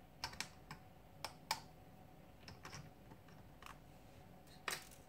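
Small, sharp plastic clicks and taps as a plastic spudger pries the loudspeaker module out of a smartphone's frame: a quick run of about five clicks at the start, a few fainter ones in the middle, and a louder clack near the end.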